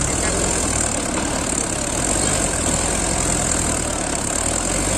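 Mahindra 585 DI XP Plus tractor's diesel engine running steadily under heavy load, pulling a fully loaded trolley up out of a sandy trench.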